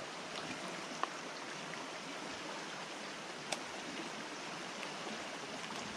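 Fast-flowing, rain-swollen trout stream rushing past in a steady, even wash of water, with two faint ticks, one about a second in and one past the middle.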